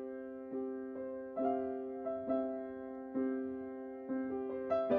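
Slow background piano music: a note or chord struck about once a second and left to ring out.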